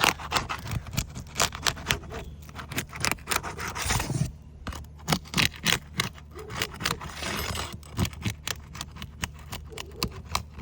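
Metal hand tool scraping and clicking under asphalt roof shingles as they are pried loose from their sealant strips, in many short irregular strokes.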